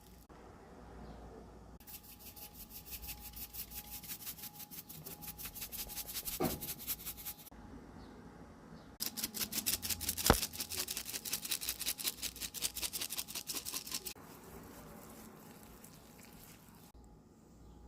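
A seasoning shaker shaken in two long runs of quick, even rattles, the second starting about nine seconds in and louder. There is a sharp knock in the middle of each run, the louder one just after the second begins.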